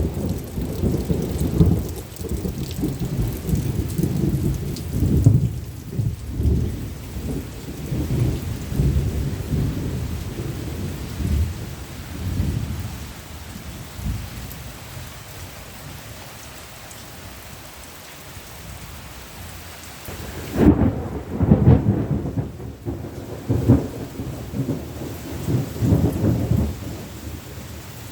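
Thunder rumbling over steady heavy rain. The rumble dies down to a lull near the middle, then a fresh, sudden peal breaks about two-thirds of the way through and rolls on to the end.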